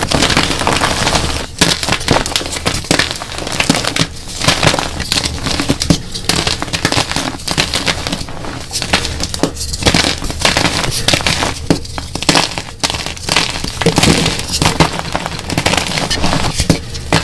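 Dyed gym chalk blocks crushed and crumbled by hand: dense crunching and crackling of breaking chalk, with chunks and powder crumbling through the fingers.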